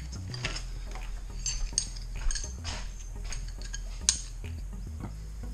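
Small metal hardware (steel brackets and bolts) being handled, giving a string of irregular light clinks and taps, the sharpest about two and four seconds in, over a steady low hum.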